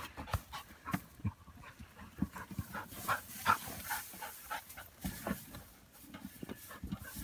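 A dog panting as it tugs at loose hay, with the dry hay rustling and crackling in irregular bursts.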